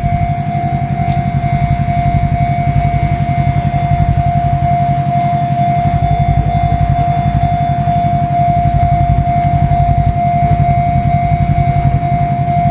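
Railway level-crossing warning alarm sounding continuously with one steady high ringing tone, over a low rumble that pulses quickly.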